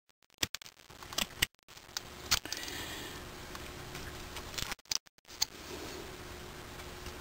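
Hobby knife blade scraping and picking at the corroded solder joint and hardened potting on an old Maytag engine ignition coil, in short scratchy strokes and clicks over a faint steady hum.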